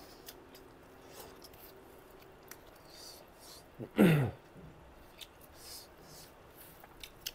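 Quiet hand-eating sounds: faint mouth clicks and smacks as food is chewed. About four seconds in, a short hum falls sharply in pitch as someone savours a bite.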